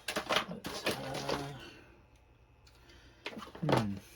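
A man's voice without clear words in two short stretches, with a quiet pause of about a second and a half between them, and a few light clicks.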